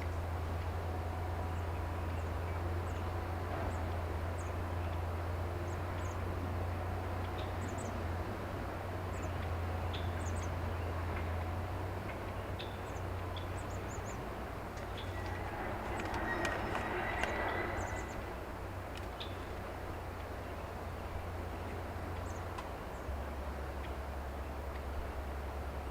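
Small birds chirping in short, scattered calls over a steady low engine drone from an excavator working down the road, with one louder, rougher call about two-thirds of the way through.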